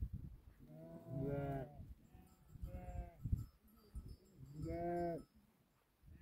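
Sheep in a large flock bleating: three calls, the first and last about a second long and the middle one shorter.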